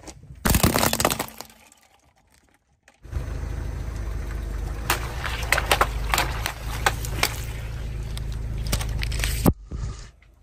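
A car tyre crushing painted spiral glass light bulbs: a loud burst of crunching, breaking glass about half a second in. After a short silence comes a steady low rumble with a run of sharp pops and cracks as the tyre rolls over a heap of filled balloons.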